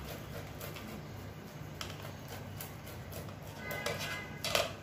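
Boiled potato being grated on a small handheld metal grater over a ceramic plate: a run of repeated scraping strokes, with a sharper clack near the end.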